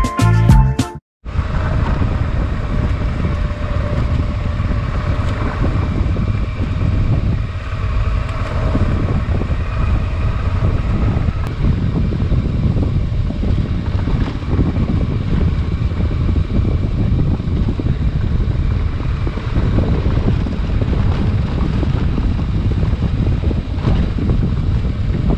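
Adventure motorcycle riding steadily along a gravel track, its engine running at an even pace under heavy wind noise on the microphone. Background music ends about a second in, just before.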